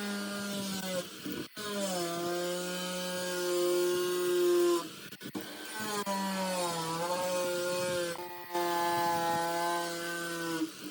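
Handheld power tool running at high speed and working material, likely wood, with a steady motor whine that dips in pitch and recovers as it loads. It is heard in several short stretches, split by abrupt breaks.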